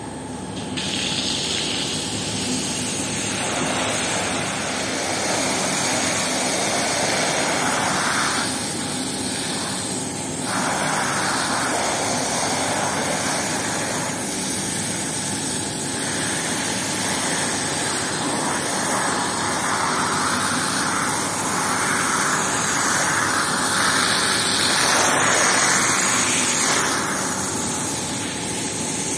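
Pressure washer running, its water jet spraying across a soaked, foamy rug: a rushing spray over a steady machine drone. The spray eases off briefly twice, about a third and halfway through.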